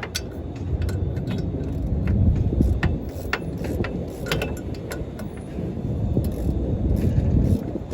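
Scattered light metallic clicks and clinks from hand work on a car's wheel hub assembly, over a low rumble that swells about two seconds in and again near the end.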